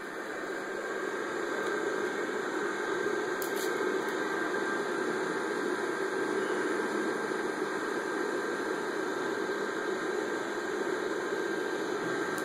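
Electric blower fan of an inflatable Halloween yard decoration running steadily: a constant airy motor hum with a thin high whine, growing louder over the first two seconds as it gets near and easing off slightly near the end.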